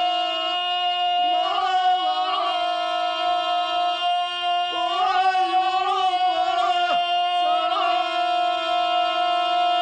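Soundtrack music: a steady drone under a wavering, ornamented melody line, with a quick downward swoop about seven seconds in.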